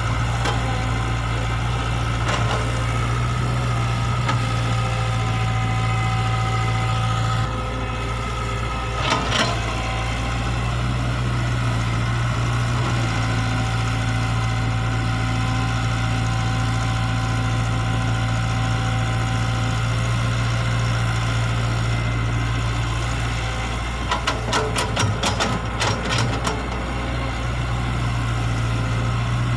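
Diesel engine of an E120B excavator running steadily while it digs soil, with a steady whine above it that comes and goes. Sharp knocks sound about a third of the way in, and a quick run of knocks comes near the end.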